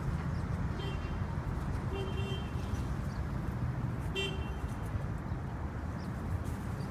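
City street traffic with a steady low rumble, and three short car-horn toots about a second, two seconds and four seconds in.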